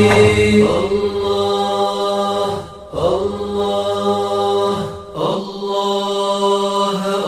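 A voice chanting a devotional Arabic qasida in long, held notes, with short breaks for breath about a third and two-thirds of the way through.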